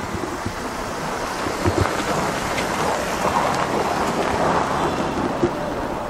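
BMW 520i E39 saloon driving slowly past on packed snow: a steady rush of tyre and road noise, with a couple of soft low thumps, one about a second and a half in and a sharper one near the end.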